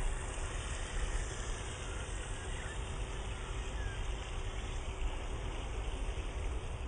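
WL917 RC jet boat's small electric motor running at speed as it moves off across the water, a faint steady whine over a low rumble and water noise.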